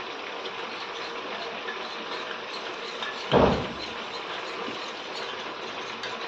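Kadha sizzling in a pan on the stove with a steady crackle, and one loud thud a little past halfway.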